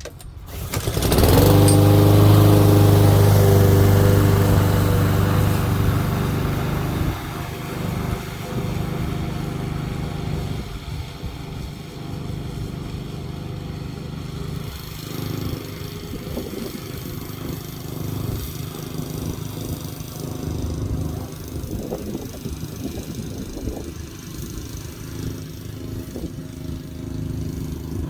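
Petrol lawn mower engine starting about a second in and running loudly at a steady pitch, then dropping to a quieter, more uneven running sound from about seven seconds on.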